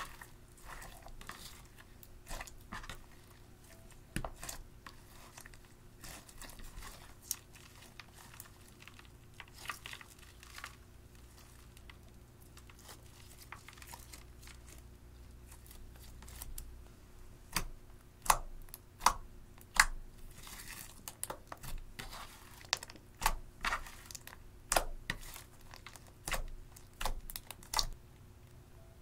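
Clear slime mixed with red eyeshadow powder being kneaded, stretched and folded by hand: a continuous stream of sticky crackles and small pops. The pops get louder and more frequent a bit over halfway through.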